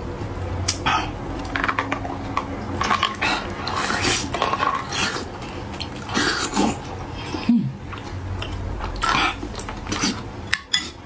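Metal spoon clinking and scraping against a plastic ladle and bowl, mixed with close-up eating sounds of soft pig brain and spicy broth being taken off the spoon, in irregular short bursts.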